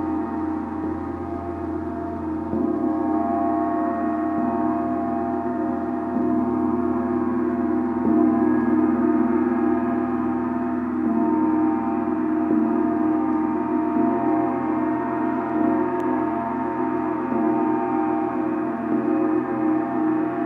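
Gong ringing in a long sustained hum of many overtones, struck softly again every few seconds so that the sound swells without ever dying away.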